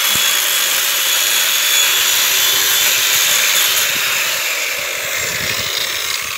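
Metro corded electric chainsaw running at full speed as its chain cuts through a log: a loud, steady motor-and-chain whine that eases slightly over the last couple of seconds as the bar comes out of the wood.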